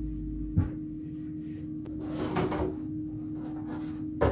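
Kitchen cleaning and handling sounds: a short knock, then about a second of rubbing or rustling as surfaces are damp-dusted with a microfiber cloth, over a steady low hum. A louder clatter begins right at the end.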